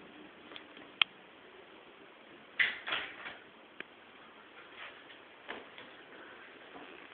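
Pet hamster rattling at its cage, biting or pulling the bars and door, because it is shut in: a sharp click about a second in, a cluster of rattles a couple of seconds later, then scattered fainter clicks.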